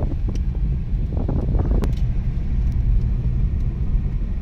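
Steady low road and engine rumble of a car driving at speed, heard from inside the cabin.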